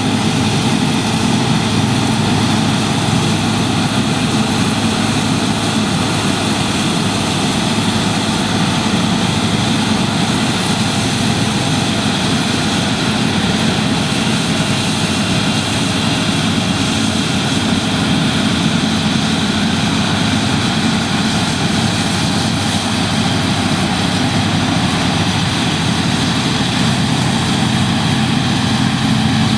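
New Holland TX68 combine harvester running steadily, a continuous, even machine noise with no change in pitch or level.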